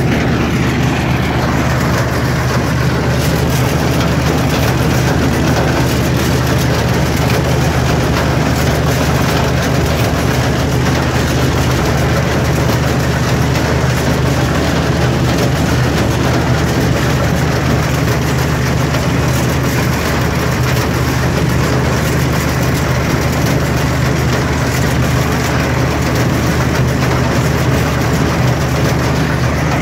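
Combine harvester running stationary with its feeder house chain-and-slat conveyor turning at speed: a steady mechanical drone with a strong low hum.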